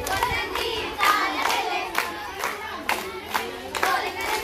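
A group of girls singing a Bathukamma folk song together while clapping in time, about two claps a second.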